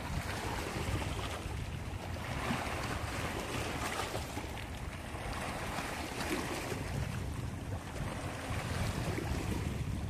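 Small sea waves lapping and washing over rocks and stones at the shoreline, swelling and ebbing as each wave breaks. Wind rumbles on the microphone.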